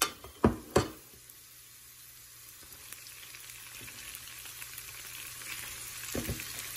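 Raw shrimp going into a skillet of sautéing onion, garlic and serrano chile in olive oil and butter: a few sharp knocks in the first second as they are tipped in, then a frying sizzle that builds steadily louder as they heat in the oil, with another knock about six seconds in.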